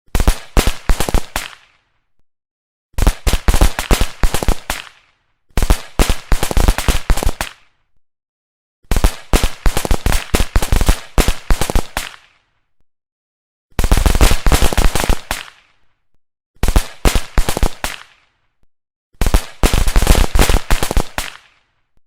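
Strings of firecrackers going off in rapid crackling runs: seven bursts of one and a half to three seconds each, separated by short silences.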